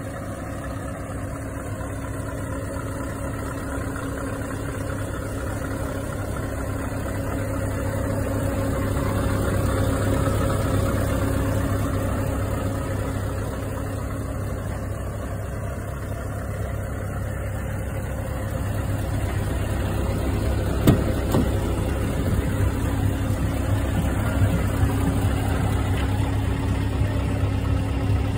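Scania R580's V8 diesel idling steadily, with one sharp knock about two-thirds of the way through and a few lighter knocks after it.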